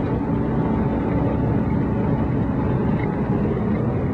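Air-cooled flat-four engine of a split-window VW Beetle running steadily while driving, heard from inside the car along with steady road and wind noise.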